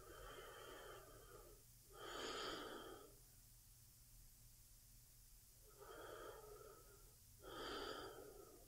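A woman's slow, sleepy breathing: two breaths several seconds apart, each a softer draw followed by a louder breath out.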